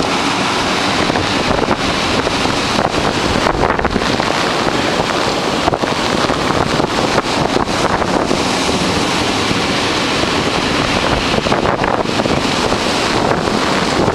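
Heavy surf breaking and washing along the shore, a loud steady roar of sea, with strong wind buffeting the microphone.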